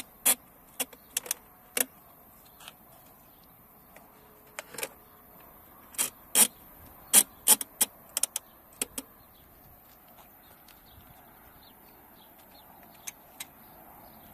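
Ratchet wheel straps of a Thule EasyFold XT bike carrier being pulled tight over the wheel rims: sharp clicks in short runs as the toothed straps feed through their buckles, then a pause and two more clicks near the end.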